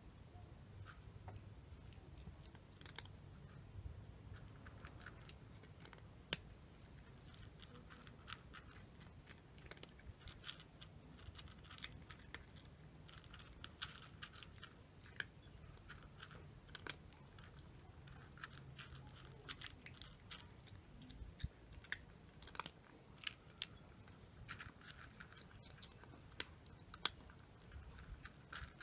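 A cat chewing dry kibble: faint, irregular crunches and clicks, coming thicker and sharper in the second half.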